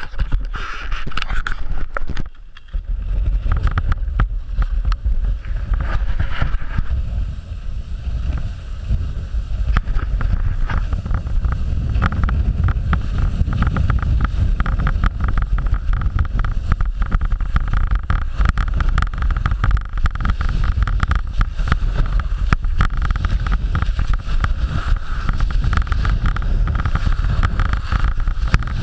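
K2 skis running downhill on packed, groomed snow: the edges rasp and scrape continuously while wind buffets the low, boot-mounted camera's microphone in a loud, steady rumble. It dips briefly about two seconds in.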